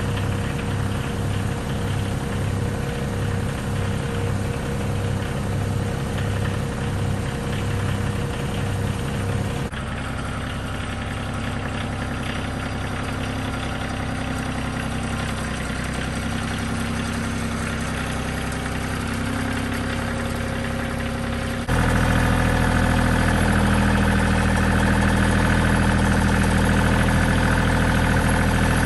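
Compact tractor engine running steadily at idle, with a slow pulsing beat in the first third. It becomes louder and closer about three quarters of the way through.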